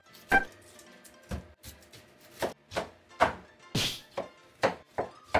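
Kitchen knife cutting an onion on a plastic cutting board: about a dozen sharp chopping knocks at an uneven pace, over faint background music.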